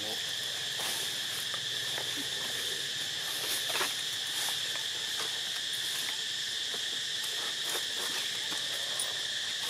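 Steady, unbroken high-pitched insect chorus, with a few faint scattered clicks and rustles.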